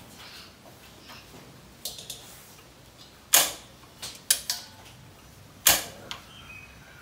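Tabletop gas stove's igniter clicking sharply several times as the knob is turned, the loudest clicks about three and a half seconds in and near six seconds, until the burner lights with a blue flame.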